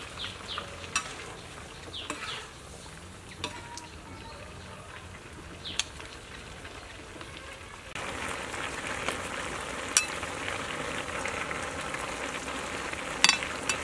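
Stir-fried vegetables sizzling in a wok, with sharp clicks and scrapes of a metal ladle against the pan. The sizzle becomes louder and denser about eight seconds in.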